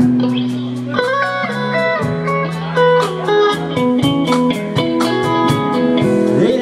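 A band playing an instrumental break: a guitar lead plays held single notes, bending some near the end, over the band and a steady beat.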